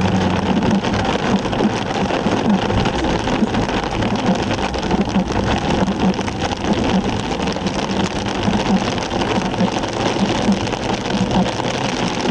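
Heavy downpour: a dense, steady hiss of rain with drops pattering on hard surfaces, over a low steady hum.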